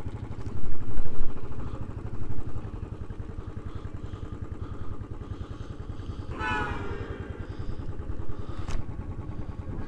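Royal Enfield Bullet's single-cylinder engine ticking over at idle with a steady low thump.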